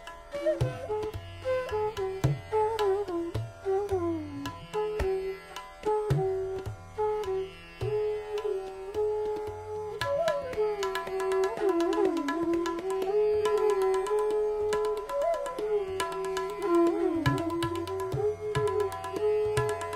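Hindustani classical bansuri flute playing a slow, gliding melody in raga Bhupali, over a steady low drone and tabla strokes.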